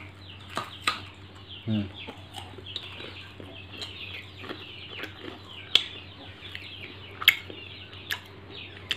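A person chewing a fried sweet close to the microphone, with a few sharp clicks; the two loudest come around six and seven seconds in. Behind it, faint chirping of birds or poultry goes on constantly.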